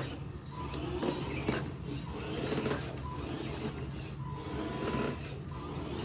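Small electric drive motors of a 1/16-scale RC John Deere S690 combine harvester whirring as it drives, over a steady low hum. Short high-pitched tones come and go several times.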